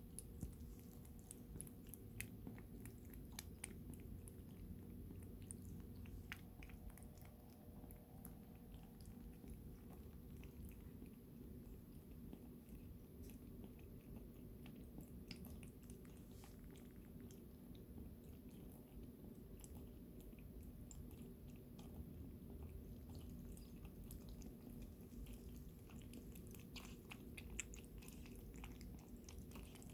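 A cat chewing and biting its food: faint, irregular small clicks and crunches over a low room hum, coming more thickly near the end.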